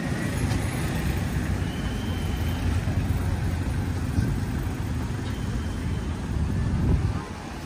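Steady low road-traffic noise from cars and motor vehicles passing along a city street.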